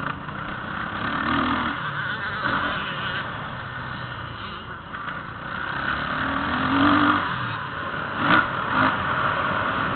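Motocross bike engine running and revving up and down over a heavy rush of wind on the microphone, with the revs climbing twice. A sharp knock sounds near the end.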